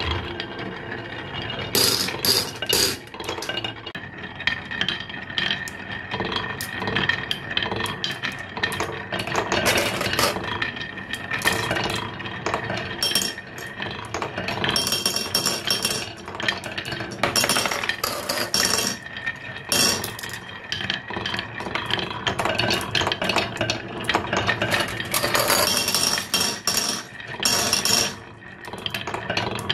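Glass marbles rolling down carved wooden zigzag tracks, rattling over the curves and clinking against the wood and against each other in a dense, irregular patter.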